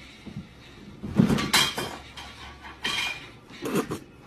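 A plastic trash can knocked about by a cat climbing on and into it: about four sudden clattering knocks, the loudest a little over a second in.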